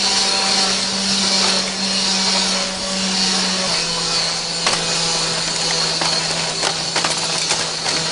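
A steady machine hum over an even hiss, the hum stepping slightly lower in pitch about halfway through, with a few sharp clicks near the end.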